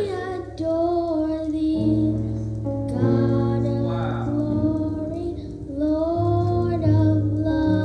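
Music with singing: a melody held in long sung notes over steady bass notes.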